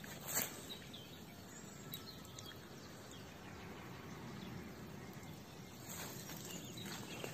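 Faint countryside ambience: a steady low background hiss with a few scattered distant bird chirps, and a brief knock about half a second in.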